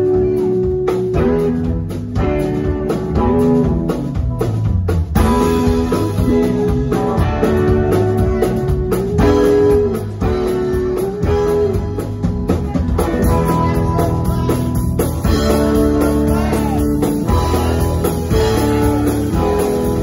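Live rock band playing loud: electric guitars repeat a bluesy riff over bass and drums.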